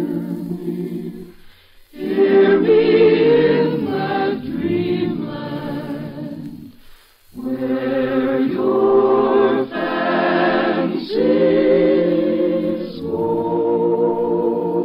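A choir singing an operetta number in sustained phrases, breaking off briefly about two seconds in and again about seven seconds in.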